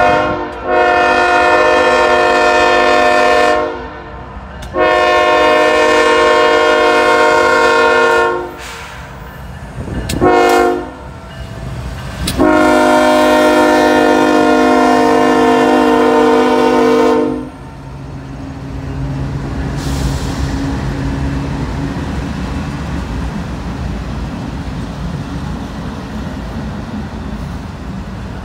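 Norfolk Southern diesel locomotive's multi-note air horn blowing the grade-crossing signal: two long blasts, a short one, then a last long blast of about five seconds. The locomotives and freight cars then roll past with a steady engine rumble and wheel noise on the rails.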